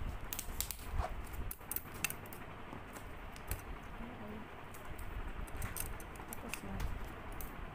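Hands handling a cardboard box: small scattered clicks, taps and rustles of fingers and a tool on the cardboard and its tape.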